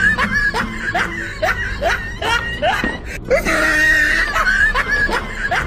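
Looped comedy sound effect: a shrill scream followed by a run of short rising laughs, about three a second. The loop starts over about three seconds in.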